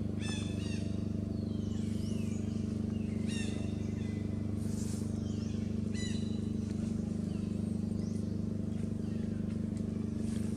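Forest ambience with a steady low hum underneath. Above it come short, high, falling calls in small groups about a second apart, with a few gliding whistles in between.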